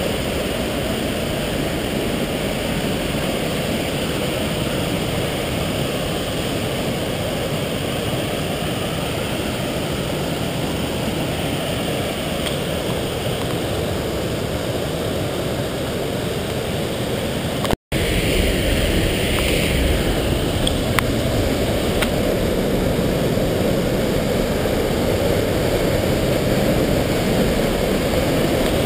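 Steady rush of a white-water mountain stream tumbling over boulders in a narrow rock gorge. About two-thirds of the way through it cuts out for an instant and comes back slightly louder and fuller.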